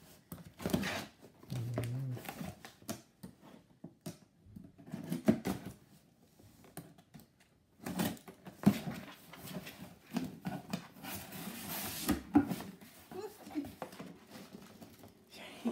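A gift box and its packaging being handled and opened by hand: irregular clicks, knocks and rustling, with a longer crinkling rustle about eleven seconds in.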